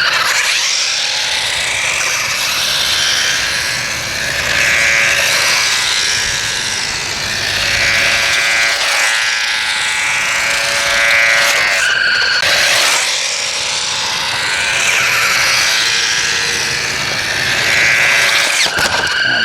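Electronic sound effects from a RadioShack Sound Bat 2 toy: loud, warbling tones that sweep up and down over a hiss. The effect breaks off briefly about twelve seconds in and again near the end.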